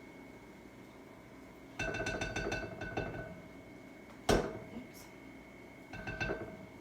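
Kitchen utensil scraping and clinking against a mixing bowl with a ringing tone, in a cluster of strokes about two seconds in and again near the end, with one sharp knock a little after four seconds.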